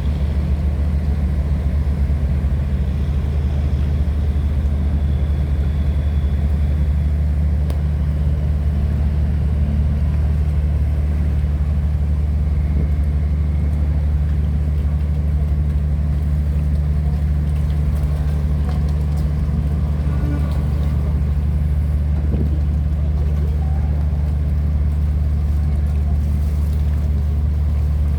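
Tugboat's diesel engine running steadily under load as it tows a cargo barge upstream against a flood current: a deep, even drone with no change in pace.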